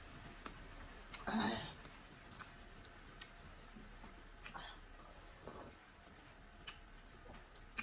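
Faint eating sounds at a meal of starch and pepper soup: scattered soft clicks and a few brief louder mouth or utensil noises, the loudest about a second and a half in.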